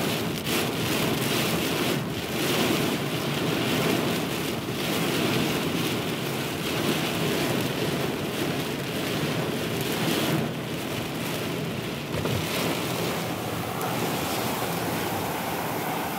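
Wind-driven rain from a passing severe thunderstorm beating on a vehicle, heard from inside the cab as a steady rushing noise.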